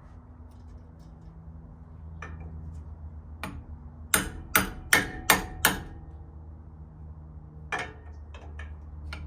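Hammer strikes driving a new rear axle seal and wheel bearing into place on a Toyota FJ40 rear axle: a few light taps, then a run of five hard, ringing metal-on-metal blows about a third of a second apart, then a few more light taps.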